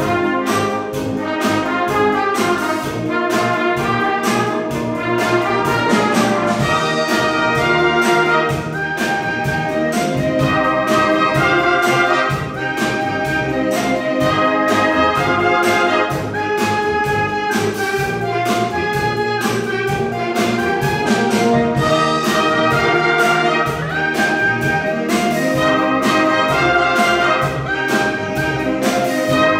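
Brass band playing a piece together: trumpets, tenor horns, French horns and tubas sounding a melody over a steady drum beat.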